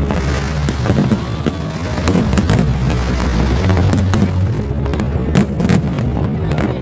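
Fireworks display: a dense run of pops and crackling bursts over loud accompanying music.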